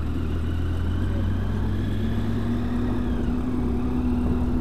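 Triumph Tiger 800 XRx's three-cylinder engine running on the move, with wind and road noise. A steady higher hum joins about two seconds in.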